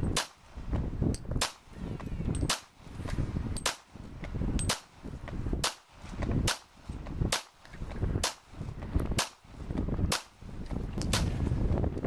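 Handgun fired in a steady string, about one shot a second, roughly a dozen sharp shots.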